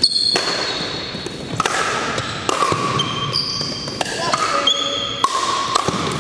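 Pickleball rally in a large gym: a string of sharp pops as paddles strike the plastic ball and it bounces on the hardwood floor, with short high squeaks of sneakers on the floor in between.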